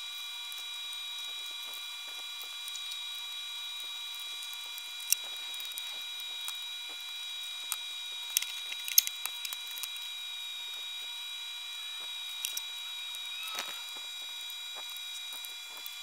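Fast-forwarded sound of a laptop being reassembled by hand: scattered small clicks and taps of screws, tools and plastic panels over a steady high-pitched whine, with a cluster of sharper clicks about eight to nine seconds in.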